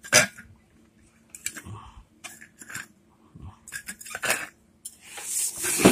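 Plastic screw cap of a Milton stainless-steel water bottle being tightened by hand: scattered clicks, knocks and scrapes of plastic on steel as the bottle is gripped and turned, with a longer rubbing scrape near the end.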